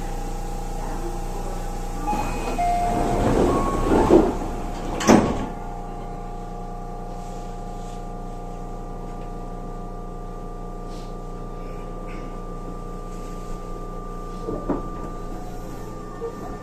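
Sliding passenger doors of a Tobu 30000 series train working at a station stop, with rattling and a sharp knock about five seconds in as they reach the end of their travel. Around it, the standing train's electrical equipment gives a steady hum of several tones.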